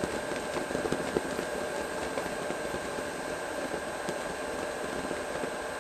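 A steady hiss with a faint constant hum, broken by a few faint crackles from polystyrene beads and a fire starter burning in a wire strainer.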